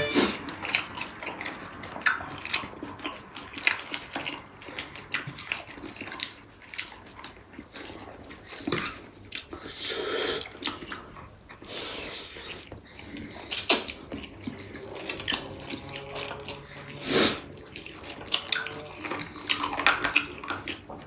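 Close-up eating sounds of two people: wet chewing and lip smacking, with a few noodle slurps and scattered clicks of a fork on a plate.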